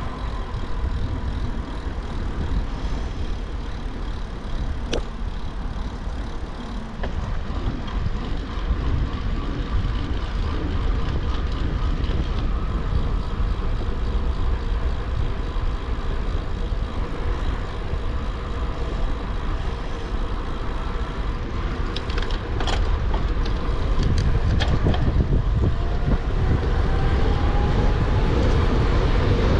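Steady wind rush on the camera microphone and tyre rumble from a gravel bike being ridden, with a few sharp clicks about two-thirds through and the noise growing louder near the end.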